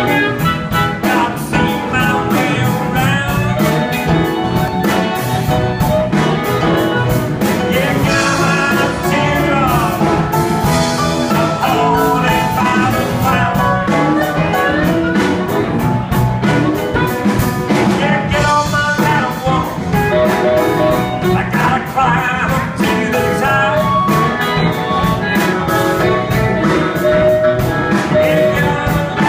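Live blues band playing an instrumental passage with a steady beat: blues harmonica lead over electric guitars, bass and drums.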